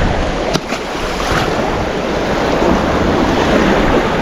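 Sea waves washing and wind blowing across the microphone, a steady rushing noise, with a couple of faint ticks in the first second and a half.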